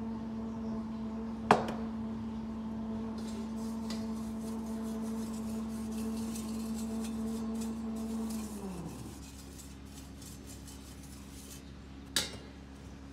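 Stainless-steel steamer trays clinking against each other, one sharp clink about a second and a half in and another near the end. Under them a small electric motor hums steadily, then winds down with a falling pitch about eight seconds in, leaving a fainter steady hum.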